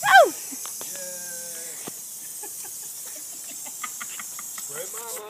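Garden hose spray nozzle hissing steadily as water sprays out. A short high vocal cry falling in pitch comes right at the start and is the loudest sound, followed by a held voice sound about a second in and brief voice sounds near the end.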